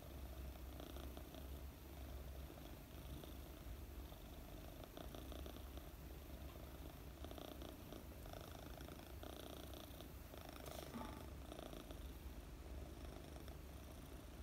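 A 4-month-old British Longhair kitten purring softly and steadily while being stroked, a low rumble that swells and eases with each breath.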